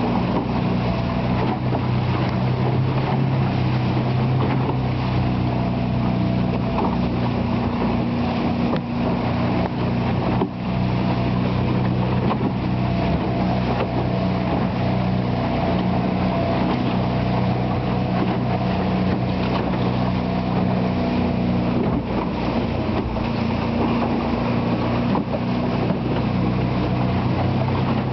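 A fishing boat's engine running steadily while the boat is underway. Its steady low hum sits over an even rushing noise.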